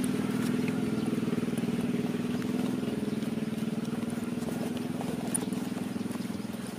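A motor vehicle engine running steadily, slowly growing fainter.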